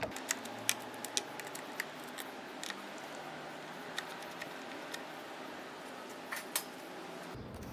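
Flathead screwdriver working the screws out of a motorcycle's air filter cover: scattered small metallic clicks and scrapes over a faint steady hiss.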